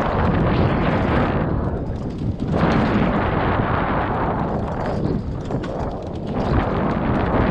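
Wind buffeting the microphone and tyres rumbling over rough ground as a high-power electric mountain bike is ridden fast on a forest trail. It is a dense, loud rumble that eases briefly twice.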